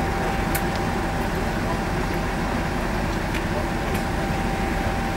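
Diesel locomotive engine idling steadily: a low rumble with a thin, steady whine above it.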